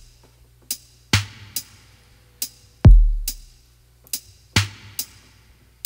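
Background music: a sparse drum-machine beat, with deep booming kick drums about every 1.7 seconds and sharp short hits between them, and no melody.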